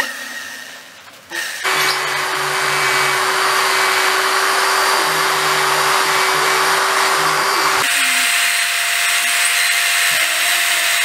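Electric drill clamped as a makeshift wood lathe, switched on a little under two seconds in and running steadily while sandpaper is held to the spinning wooden piece. About eight seconds in the sound changes abruptly to a higher motor tone as a blade scrapes the turning wood.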